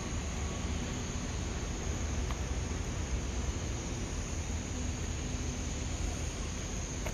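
Steady low rumble with an even hiss, the constant drone of a large docked cruise ship's machinery and ventilation.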